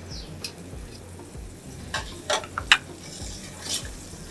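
Butter sizzling softly in a stainless-steel kadai while a metal spatula stirs it, scraping and knocking against the pan several times in quick succession about halfway through and once more near the end.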